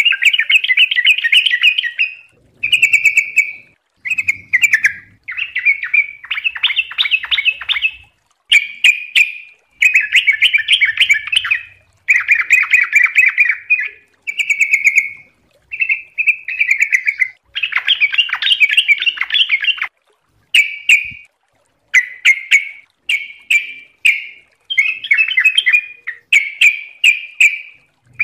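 Yellow-vented bulbul (trucuk) singing its chattering, bubbly song in quick phrases of one to two seconds each, one after another with only short breaks.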